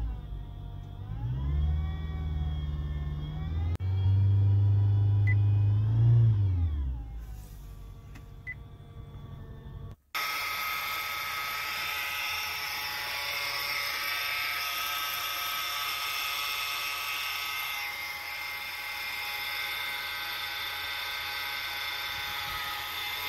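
Honda Accord engine running with a supercharger-like whine from its serpentine-belt tensioner pulley, a sign of a worn bearing in the pulley. Heard first from inside the cabin, the engine and whine rise and fall in pitch twice with the revs. About ten seconds in it changes to a steady, high whine heard close to the open engine bay at idle.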